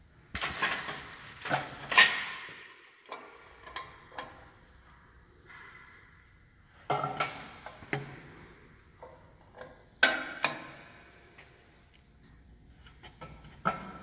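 Scattered knocks and clatters: a cluster in the first two seconds, more about seven, ten and thirteen seconds in, the sharpest with a brief ring after.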